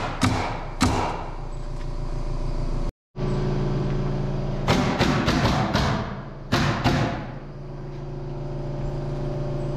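Pneumatic nail gun firing nails into plywood: sharp cracks in quick runs, two near the start, then a run of about four around five seconds in and three more around seven seconds. Background music with steady sustained tones plays underneath.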